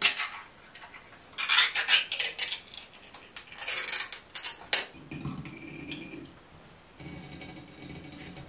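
A small metal tin of tuna being handled over a stainless steel sink: a metal spoon clicks and scrapes against the tin, then the oil pressed out of it dribbles into the sink in two short pours.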